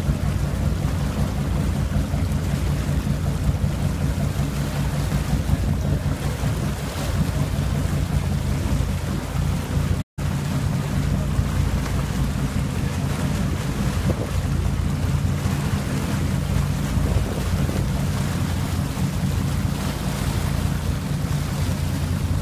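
Boat engine running steadily under way, with water rushing from the wake and wind buffeting the microphone. The sound cuts out completely for a split second about ten seconds in.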